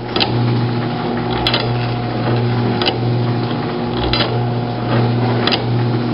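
Homemade can crusher running: a 1/2 HP Craftsman garage door opener motor hums steadily, driving a bicycle chain, sprocket and crank. The push rod and wooden ram cycle back and forth, with a sharp click about every second and a third, once per stroke.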